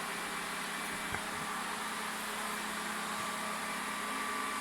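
Ecovacs Deebot 900 robot vacuum running, a steady whirring hum with hiss from its suction fan and brushes, with a light click about a second in.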